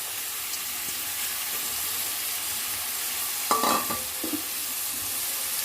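Pieces of raw mutton sizzling steadily in a pan of hot oil as they start to fry, with one brief, sharper sound a little past halfway.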